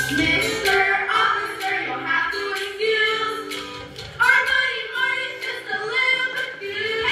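Musical-theatre song: the cast singing over instrumental accompaniment, with a louder sung phrase coming in about halfway through.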